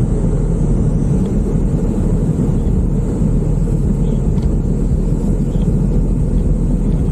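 Steady, loud wind rumble buffeting the microphone while riding a bicycle downhill.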